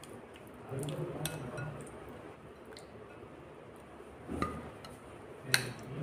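Soft, wet squishing of a hand working chilli masala paste into pieces of king mackerel in a glass bowl. There are two sharp clinks against the glass near the end; the second is louder.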